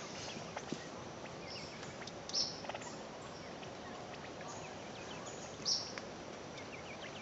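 Dark-backed wood-quails foraging in forest-floor leaf litter: soft scattered ticks and rustles over a steady hiss, with two short high chirps about two and a half and six seconds in.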